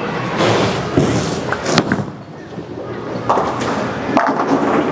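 Storm IQ Tour Ruby bowling ball thrown down a lane: a thud as it lands about a second in, a rolling rumble, then the clatter of pins later on, over bowling-alley background noise.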